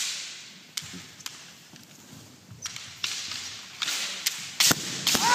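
Kendo bout: a sharp crack of bamboo shinai at the start, then a few isolated knocks as the fencers separate. Hoarse kiai shouts follow, with another loud crack about four and a half seconds in and a rising shout near the end.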